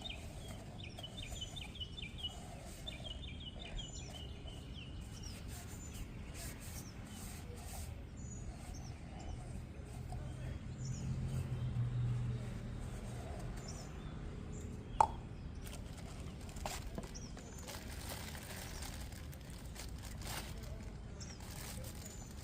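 Birds chirping in quick repeated trills over steady outdoor background noise, with a few faint knocks and one sharp click about fifteen seconds in.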